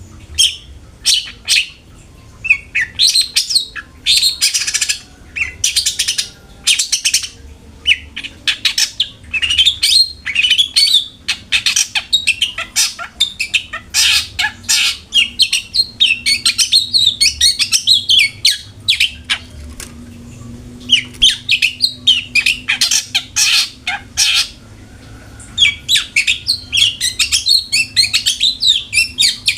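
Long-tailed shrike (cendet) singing a fast, continuous chatter of sharp, high notes, with two short pauses in the second half.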